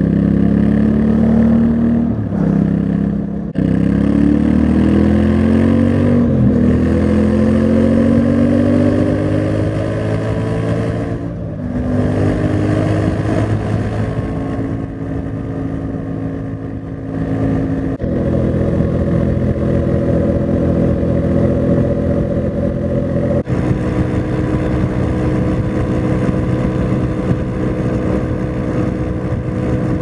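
Yamaha Ténéré 700's CP2 parallel-twin engine through its stock exhaust, under way at speed. The engine note dips at gear changes about 2 and 3.5 seconds in, climbs in pitch as it pulls through a gear, and dips again at a shift near 11 seconds. After that it holds a steady cruising note, with two sudden changes in the second half.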